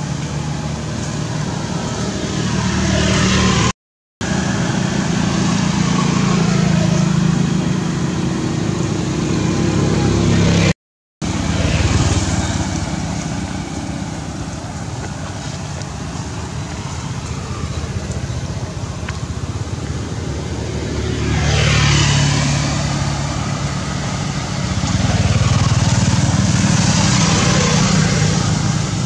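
Road traffic: motor vehicles passing close by, their engine hum and tyre noise swelling and fading, loudest about three-quarters of the way through and again near the end. The sound drops out completely twice, briefly, about four and eleven seconds in.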